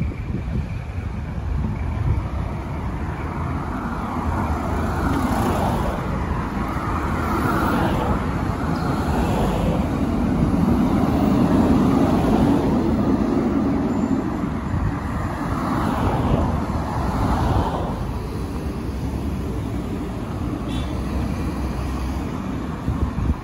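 Road traffic: cars and vans driving past one after another on a busy street, as a steady rumble that swells several times as vehicles pass close by, loudest a little before the middle.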